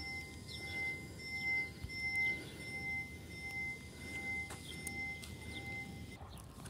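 Level crossing warning bell ringing: a steady repeated ding, about two a second, that stops about six seconds in.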